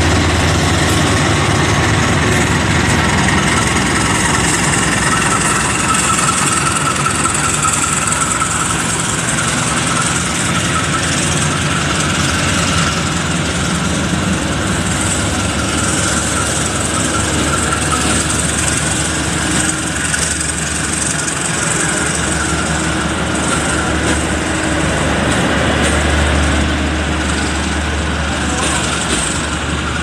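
A departing passenger train rolling past: the CC 203 diesel-electric locomotive's engine running as it pulls away, then the coaches rolling along the rails, with a steady low hum throughout that swells again near the end.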